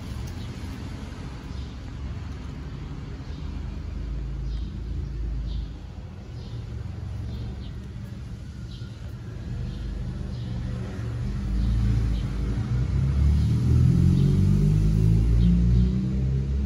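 Low engine rumble of a motor vehicle, growing louder in the second half.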